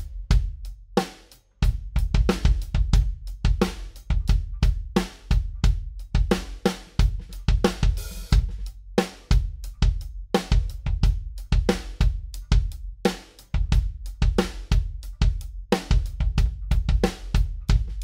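Drum kit played in a steady groove: kick drum, snare, hi-hat and cymbals. The kick is heard through a Shure Beta 91 mic inside the drum together with a small condenser mic aimed at the beater on the batter side. The playing stops briefly about a second and a half in, then carries on.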